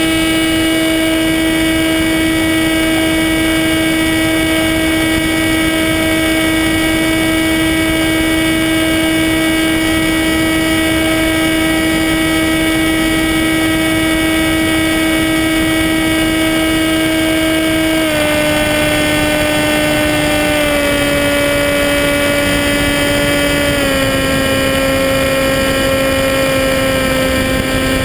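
Electric motor and propeller of a Skywalker 1880 FPV plane, heard from its onboard camera: a steady high whine at full throttle in flight. In the last ten seconds the pitch steps down three times as the throttle is eased back.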